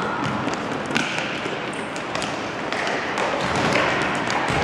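Futsal game in play: taps and thuds of the ball being kicked and of players' feet on the court, over a steady haze of hall noise, with a sharp knock about a second in.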